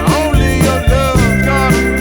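Background music: a pop song with a steady beat and bass, and a bending melodic line in an instrumental passage between sung lines.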